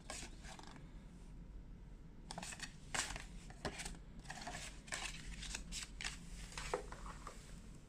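Faint, irregular rustling and light clicks of phone-box packaging and accessories being handled, several short sounds spread through the middle and latter part.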